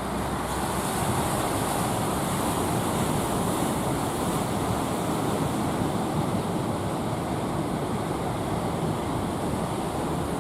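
Heavy ocean surf: large waves breaking and washing in a steady, continuous rush, with wind on the microphone.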